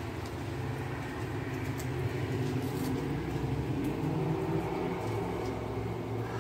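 Low rumble of road traffic, growing louder partway through and easing off near the end, as a vehicle passes on the nearby highway.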